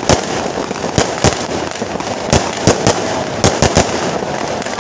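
Firecrackers going off: a dense, continuous crackle with louder single bangs at irregular intervals, about nine of them, sometimes several within a second.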